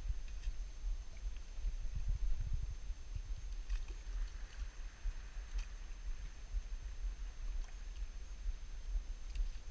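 Wind buffeting the camera's microphone, a low uneven rumble, with a few faint ticks.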